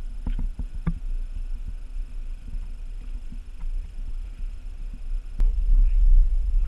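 Motorboat engine idling with a low, throbbing rumble. There are a few light knocks and clicks in the first second and a sharp knock about five and a half seconds in, after which the rumble grows louder.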